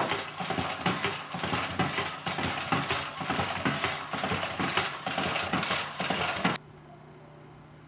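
Toy humanoid robot walking on a hardwood floor: a fast, uneven clatter of plastic feet and clicking mechanism, which cuts off suddenly about six and a half seconds in.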